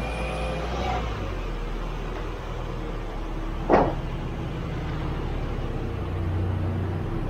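A 2006 Subaru Impreza 2.5L's flat-four engine running steadily at low revs as the car reverses slowly. About halfway through there is one brief, sharp higher sound.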